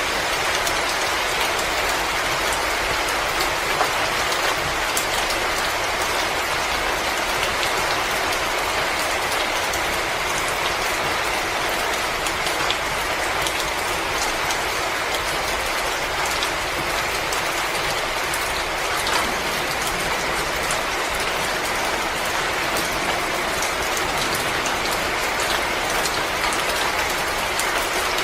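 Wood fire crackling in a fireplace: a steady hiss full of many small pops and snaps.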